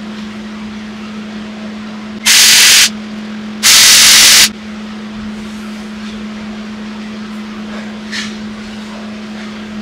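MIG welder arc laying two short tack welds on steel tubing: two loud bursts of hissing crackle about two seconds in, the first about half a second long, the second nearly a second, over a steady low hum.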